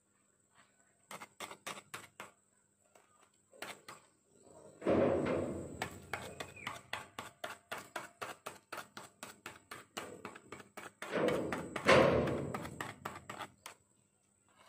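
A rapid, even series of sharp knocks or taps, about four to five a second, with two louder noisy swells about five and twelve seconds in.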